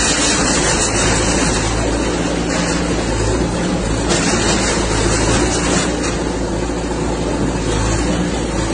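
Bulldozer's diesel engine running, a loud steady rumble with a dense noisy wash over it.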